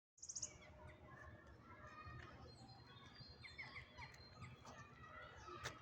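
Faint outdoor ambience with scattered small bird chirps over a low background hum, and one sharp click near the end.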